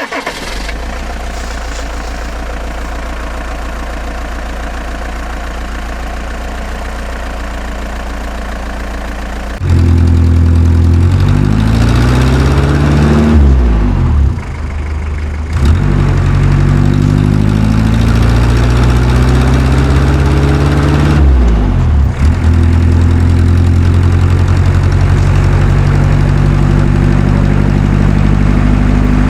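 Tractor engine idling steadily, then louder from about ten seconds in, revving up and down several times before settling back to a steady run.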